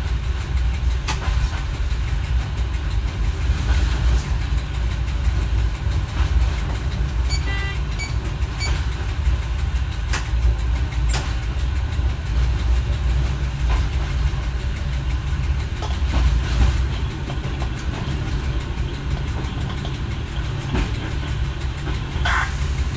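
Y1 diesel railcar running slowly along the track, its engine and wheels making a steady low rumble inside the driver's cab, with occasional clicks from the wheels over the rails. A brief high squeal comes near the end.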